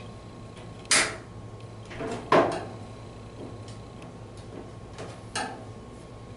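Putty knife prying at the spring tab of a Whirlpool Estate dryer's sheet-metal top panel: four sharp metallic clicks and knocks with a few fainter ticks, the loudest about two and a half seconds in, over a steady low hum.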